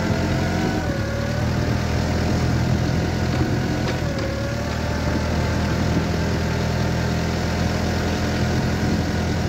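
Vehicle engine running steadily, heard from inside the cab: a low, even drone with a higher whine above it that wavers up and down in pitch.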